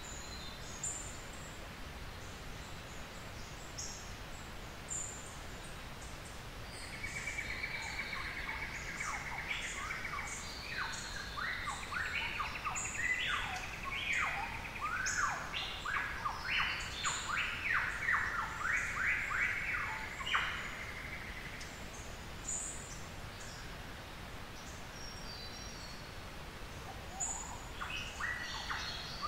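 Forest birds singing: one bird gives a loud song from about seven seconds in, a buzzy trill and then a fast run of many falling, sweeping notes, which stops about twenty seconds in. Faint thin high chirps of other birds run throughout, and another bird starts calling near the end.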